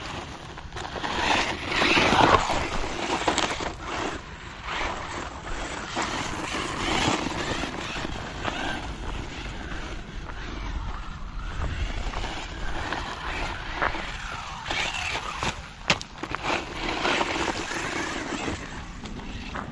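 Rlaarlo AM-D12 electric 4WD RC desert buggy driving on a dirt track: its motor rising and falling with the throttle, and its tyres on loose dirt and gravel. A sharp knock comes near the end.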